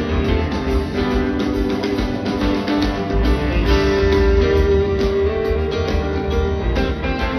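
Live rock band playing through a concert PA, guitars and keyboards over a heavy bass with steady drum hits, heard from within the crowd.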